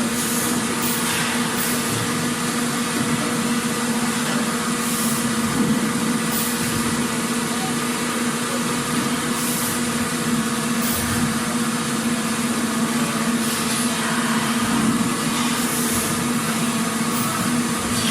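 Factory machinery ambience: a steady mechanical din with a constant low hum, and now and then a short high hiss.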